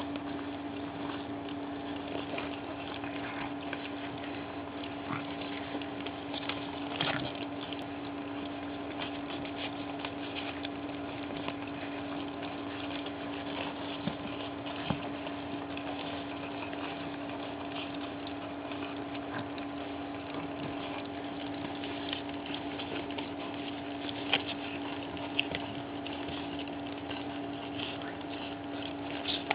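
A litter of pug puppies lapping and smacking wet weaning food from a shared dish: a constant mass of small wet clicks and slurps, with a few sharper smacks, over a steady low hum.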